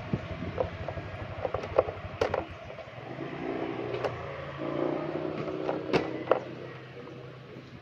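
Motorcycle engine running on the move, its pitch rising and falling between about three and seven seconds in, with several sharp knocks and rattles scattered through.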